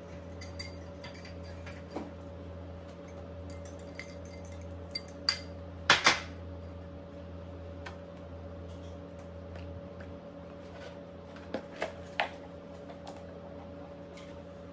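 A few scattered clinks and knocks of a whisk, glass mixing bowl and containers handled on a kitchen countertop, the loudest a quick pair about six seconds in and three more near the end, over a steady low hum.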